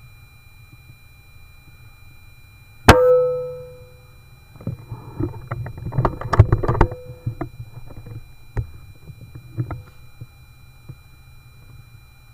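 A single air rifle shot about three seconds in, with a brief ringing after the crack, followed by a few seconds of irregular knocks and rustling and a couple of isolated clicks. A steady low rumble of wind on the microphone runs underneath.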